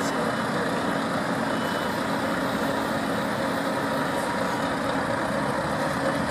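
Diesel engines of heavy lorries idling steadily.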